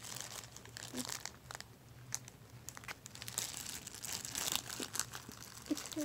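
Plastic zip-lock bag crinkling and rustling in irregular bursts as it is handled and squeezed. It goes quieter about one and a half to three seconds in, then the crinkling picks up again.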